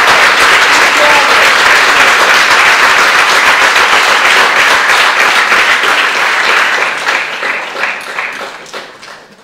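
Audience applauding, a dense, steady clapping that dies away over the last two seconds.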